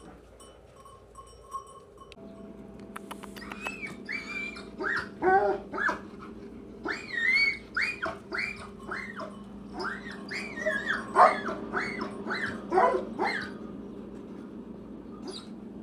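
A rapid series of short, high-pitched animal cries, each bending in pitch, over a steady low hum that starts about two seconds in.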